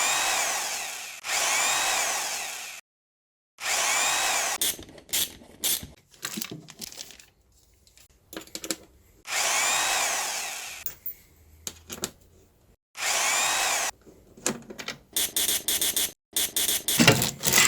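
A power drill/driver run in about five short bursts, its motor whining up and down in pitch each time, with clicks and knocks between, as it undoes tightly fastened shipping fixtures on a packed 3D printer.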